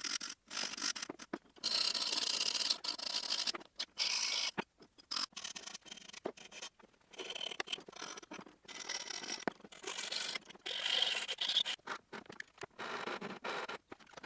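Hand file rasping across a maple knife handle: a run of uneven scraping strokes with short breaks between them.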